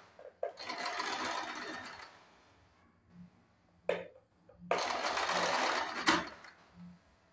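Domestic electric sewing machine stitching a straight seam through thin blouse fabric in two short runs of about a second and a half each, with a click between them and a sharp click as the second run stops.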